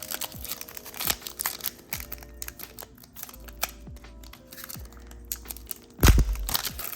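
Foil booster pack wrapper crinkling and being torn open, with cards rustling and clicking as they are handled. A louder thump and rustle come about six seconds in.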